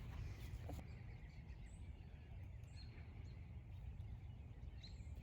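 Quiet outdoor ambience: a steady low rumble with a few faint, high bird chirps scattered through it.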